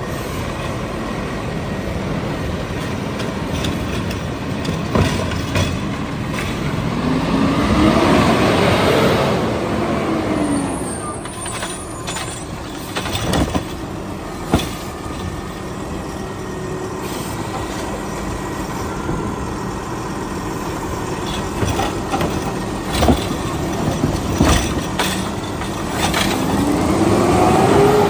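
A Peterbilt 520 garbage truck's engine revs to drive the McNeilus Autoreach arm's hydraulics, its pitch rising and falling about a third of the way in and rising again near the end. In between come sharp clanks and bangs as the arm dumps the cart and lowers it back down.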